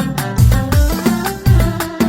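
Background music with a steady beat: deep bass-drum hits about twice a second under melodic instruments and percussion.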